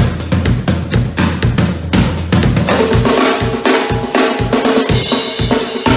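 Drum kit playing a groove: bass drum and snare strokes, several a second, with rimshots.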